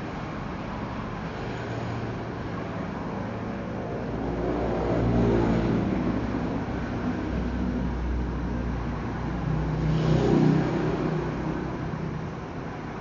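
A motor vehicle engine passing close by, the sound swelling about four seconds in and peaking twice, around five and ten seconds in, before fading, over a steady background hum.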